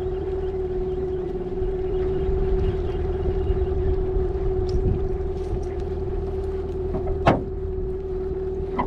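Boat's outboard motor running steadily at trolling speed, a steady whine over a low rumble, with one sharp knock about seven seconds in.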